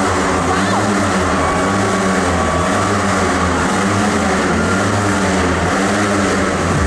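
Motorcycle engines revving inside a steel-mesh globe of death, their pitch rising and falling about once a second as the riders loop around the sphere.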